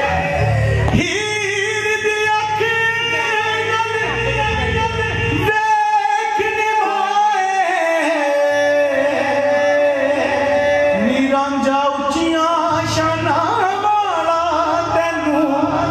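Qawwali: a singer's voice in long, ornamented melodic lines over instrumental accompaniment with a low rhythmic pulse.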